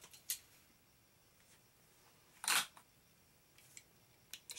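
A few light clicks and one sharper clack about two and a half seconds in: a die-cast Hot Wheels car and a plastic track launcher being handled as the next car is loaded.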